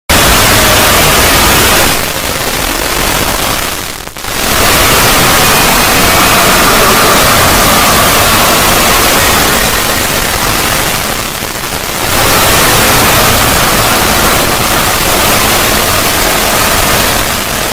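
Loud, harsh static-like noise from an edited 'void' logo sound effect, filling every pitch with a faint steady tone buried in it. It sags briefly at about two and four seconds in, and again near eleven to twelve seconds.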